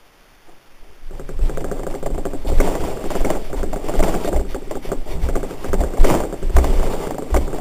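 Loud rustling, scraping and irregular thumping, starting about a second in, as a fleece bathrobe brushes and bumps against the camera's microphone while its wearer dances up close.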